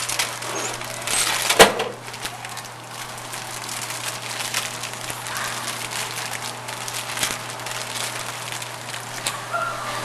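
Irregular crackling and crinkling of a party mix snack bag being handled and its contents eaten, with a sharp click about a second and a half in, over a steady low hum.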